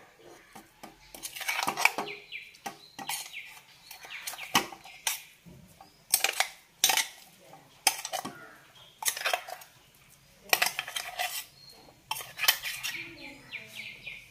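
Metal spoon clinking and scraping on metal cookware as ground coconut paste is spooned into a pressure cooker of cooked vegetables. The clinks come in short clusters every second or two.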